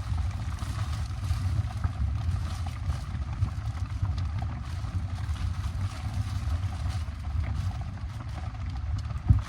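Rain on the bike camper's shell and tarp: a steady low rumble with scattered drop ticks. A single knock near the end.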